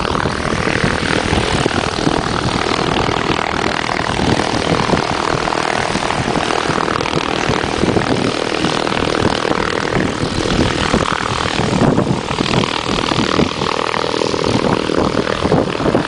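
Engine and propeller of a light aircraft running nearby, a loud steady drone.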